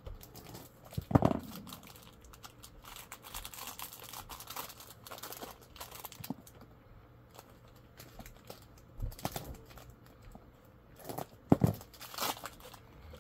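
Plastic packaging crinkling and rustling as small pins are unwrapped and handled, with two dull knocks, about a second in and near the end.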